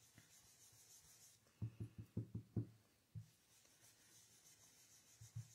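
Faint, soft dabbing of a Stampin' Up! blending brush's round head on cardstock as ink is blended in: a quick run of about six light taps in the middle, one more shortly after, and two near the end.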